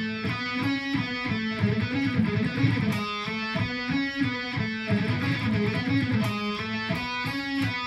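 Electric guitar alternate-picked in fast speed bursts crossing between the D and G strings, a 6-7-9 fret pattern on each string, played as several short runs with brief breaks between them. A slight muting issue is audible, which the player puts down to holding the D string a little too long with the pinky.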